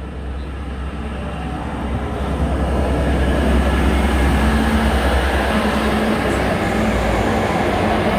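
NSW TrainLink Hunter railcar, a diesel-hydraulic railcar with a Cummins QSK19R diesel engine, approaching along the platform and running past close by. A low engine drone with rolling noise grows louder over the first few seconds, then holds steady, and a humming tone comes and goes from about halfway through.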